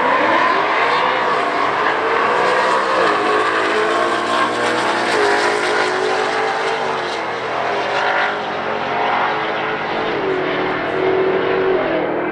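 Car engine at full throttle during a drag-strip run, its pitch climbing and dropping back several times as it shifts up through the gears.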